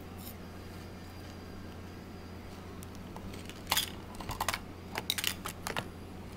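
A quick cluster of sharp clicks and taps a little past the middle, over a steady low electrical hum.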